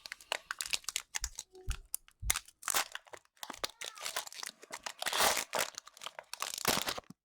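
Foil Pokémon booster pack wrapper being crinkled and torn open by hand: irregular crackling and rustling, loudest about five seconds in.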